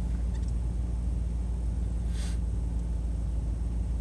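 Steady low rumble inside the cabin of a 2002 Dodge Durango with its engine idling, plus one short hiss about two seconds in.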